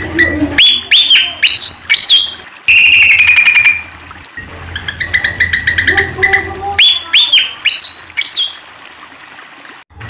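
Malaysian pied fantail singing: two bursts of quick rising-and-falling whistled notes, with a held whistle and a fast chatter between them.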